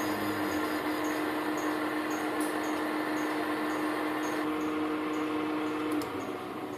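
A machine-tool electric motor running with a steady hum and faint high ticks about twice a second. The hum cuts off about six seconds in as the machine is switched off, and the sound fades as it winds down.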